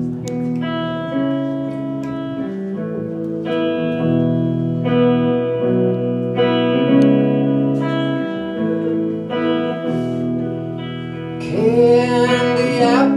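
Live rock band playing the song's instrumental intro: sustained chords that change every second or two over a bass line. A singer's voice comes in near the end.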